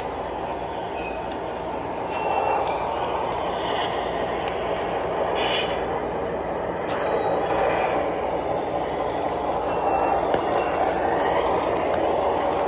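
O gauge model train running on metal track, with a Santa Fe RS diesel locomotive hauling gondola cars close by: a steady rumble of motor and wheels that swells as the train passes, with light clicks and a few brief squeaks.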